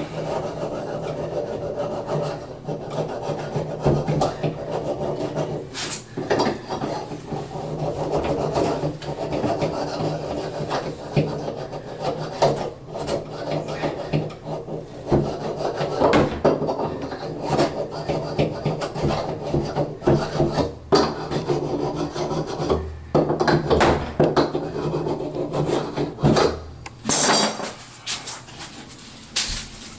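Fine sandpaper rubbed back and forth on a water supply pipe stub-out, scouring off paint and drywall mud to clean the pipe before an angle stop is fitted. The scraping strokes are uneven and ease off near the end.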